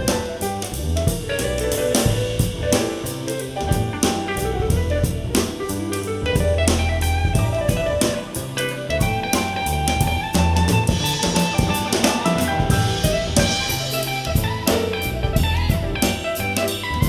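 Instrumental soul-jazz music with a drum kit, guitar and bass line, played back through in-ear monitors for a sound demo.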